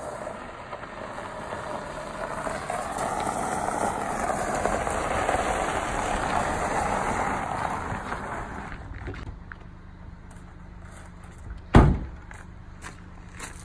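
Toyota Sienna minivan driving slowly past on a gravel driveway, its tyres crunching and engine running, swelling as it comes near and fading away by about nine seconds in. Near the end, one sharp bang, a car door being shut.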